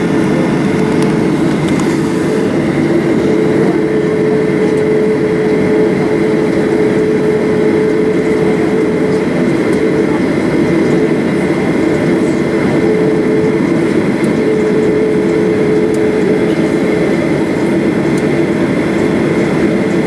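Cabin noise of a Boeing 737-800 taxiing, heard inside the cabin: its CFM56 turbofan engines running at taxi power as a steady, loud rumble, with a humming tone that comes and goes.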